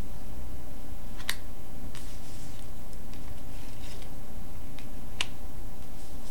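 Tarot cards being slid and shuffled around by hand on a cloth-covered table: soft rustles of card on card and cloth, with two sharp clicks about four seconds apart, over a steady low hum.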